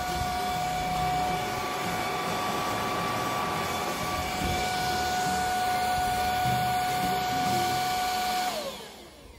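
Xiaomi Mi Vacuum Cleaner Light cordless stick vacuum running with a steady high whine. Near the end it is switched off and the motor spins down with a falling whine.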